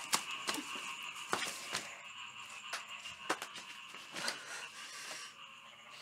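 Faint steady night-time chorus of insects and frogs, with a few scattered soft knocks and clicks.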